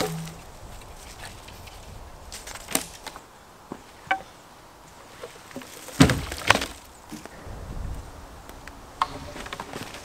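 Sawn logs knocking against each other as they are dropped onto a log pile: several light wooden knocks, then two loud thuds about half a second apart just past halfway.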